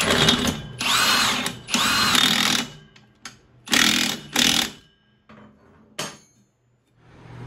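Impact wrench driving the nut onto a riding mower deck pulley's bolt in bursts: three of about a second each, then two short ones; a single click near the end.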